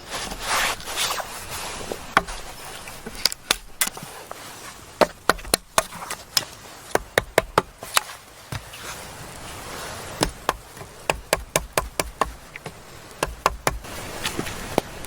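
Runs of sharp wooden-sounding knocks or taps, several a second in quick clusters with short pauses between, over a faint steady background hiss.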